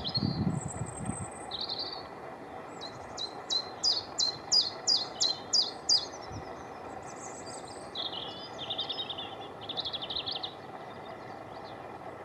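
Common chiffchaff singing: a run of about ten evenly spaced, high chiff-chaff notes, about three a second, lasting some three seconds. Softer high twittering is heard before it and again near the end.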